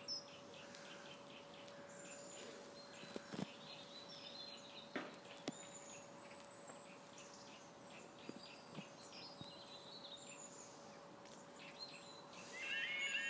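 Birds chirping faintly over quiet ambience with a steady faint hum and a few knocks. Near the end, the level crossing's warning alarm starts up, a loud, rapidly repeating warbling tone, as the crossing begins its closing sequence.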